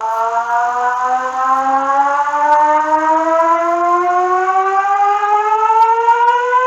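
Siren winding up, its pitch rising slowly and steadily throughout, as an emergency alarm sound. It starts abruptly.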